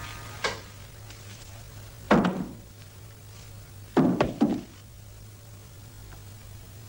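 A few dull wooden knocks and thumps from a bed being climbed into: a light one near the start, a loud one about two seconds in, and a quick cluster of three about four seconds in. A steady low hum lies underneath.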